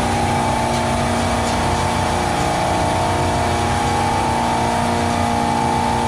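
Steady mechanical hum of a running refrigeration condensing unit, its compressor and fan droning evenly with a few held tones.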